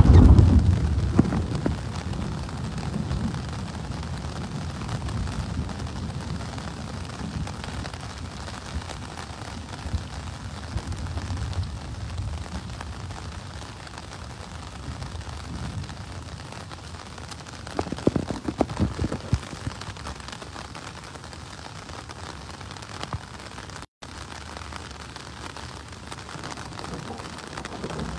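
Heavy rain falling on a flooded street and parked cars, a steady hiss, with a low rumble of thunder dying away over the first few seconds. A brief cluster of knocks comes about two-thirds of the way through.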